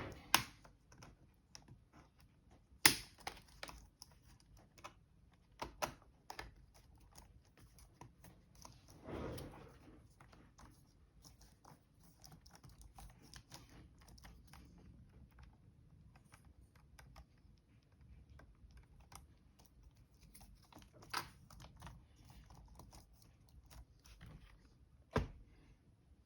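Scattered clicks and taps on a Dell Latitude E7440 laptop keyboard, with a few sharper knocks and a brief rustle about nine seconds in.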